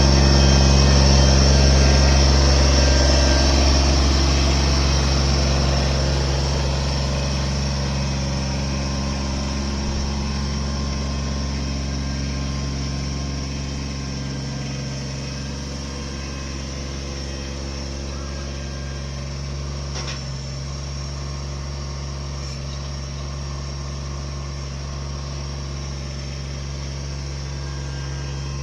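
An engine running steadily, loud at first, then growing quieter over the first fifteen seconds or so and holding there.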